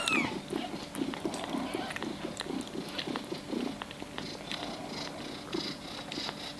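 Maine Coon kitten suckling from a feeding-bottle nipple: a rhythmic run of sucking and swallowing sounds, about three a second, with a short mew right at the start.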